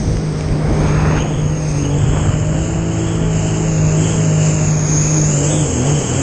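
Jet ski engine running at a steady pitch over a broad rushing noise, the pitch wavering briefly near the end.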